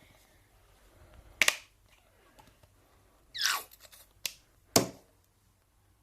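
Sharp plastic clicks and one short squelch that falls in pitch, from a plastic bottle of hair conditioner being handled and squeezed into a mixing container.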